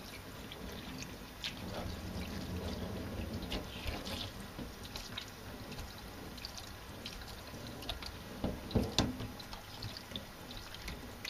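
Tap water running and splashing irregularly in a kitchen sink as the gutted belly cavity of a tilefish (amadai) is rinsed out.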